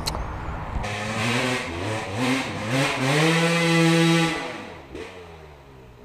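Dirt bike engine revving up in steps, holding high revs for about a second, then dropping off and fading.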